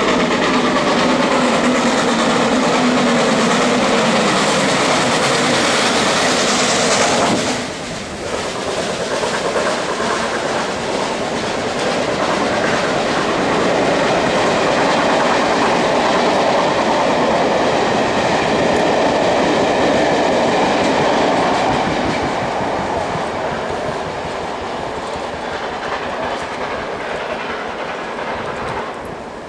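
GWR Castle class 4-6-0 steam locomotive No. 5043 working a departing train towards and under the bridge. Its loud working sound drops away suddenly about seven and a half seconds in as the engine passes beneath. The coaches then roll by with a clickety-clack of wheels over the rail joints, fading as the train draws away near the end.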